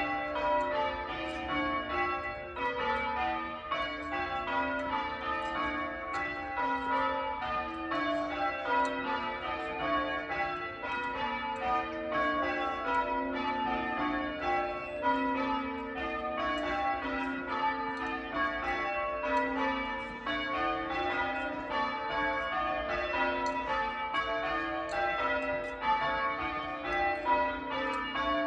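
Church bells being rung in changes: a continuous, even run of overlapping strokes at several pitches.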